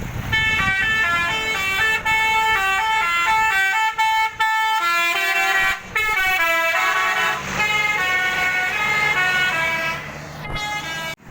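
Bus telolet horn: a set of air horns playing a quick tune of stepping notes, with the bus engine running underneath in the second half. The tune fades out about ten seconds in.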